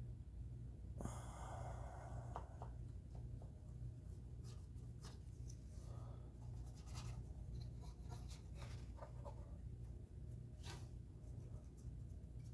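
Faint scratching and soft ticks of a fine paintbrush stroking over a plastic model ship hull, blending in a thin acrylic wash, with a brief swish about a second in. A steady low hum runs underneath.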